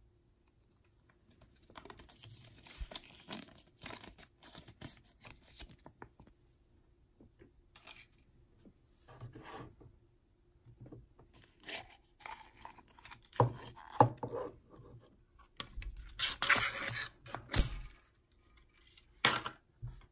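Hands handling a folded paper instruction leaflet, rustling and crinkling, then a small plastic toy pot and capsule, with scrapes and several sharp plastic clicks and knocks that are loudest in the second half.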